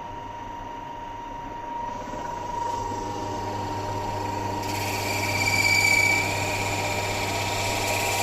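Pillar drill motor running with a steady hum. About five seconds in, the bit starts boring into a beech rolling-pin blank and a louder, higher cutting whine comes in, peaking around six seconds.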